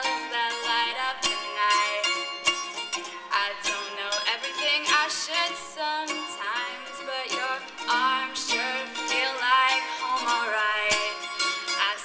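Live music: a woman singing, with wavering held notes, over a strummed plucked string instrument.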